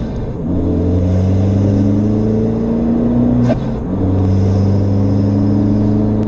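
Abarth 595 Trofeo's turbocharged 1.4-litre four-cylinder engine, fitted with a Forge induction kit and dump valve, heard from inside the cabin accelerating hard through the gears. The engine note rises steadily and drops at a gear change just after the start and again about three and a half seconds in, with a short sharp sound at the second change.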